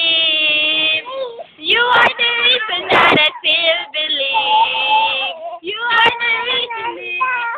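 A high-pitched, child-like voice singing, with a long held note at the start and another around the middle between shorter sung phrases.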